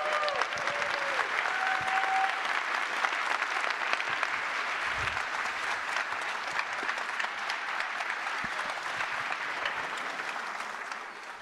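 A large audience applauding, with a couple of brief cheers in the first two seconds.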